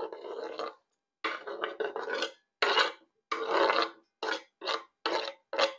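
Diced onions and carrots being scraped off a wooden cutting board into a pot, in about eight short scraping strokes that get shorter toward the end.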